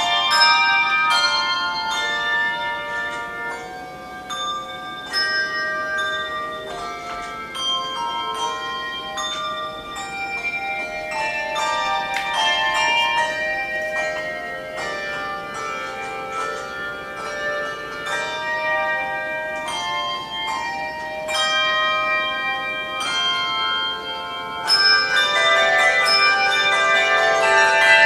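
A handbell choir ringing a piece on handbells: struck notes that ring on and overlap in chords. About three seconds before the end it grows louder and fuller, with many bells sounding at once.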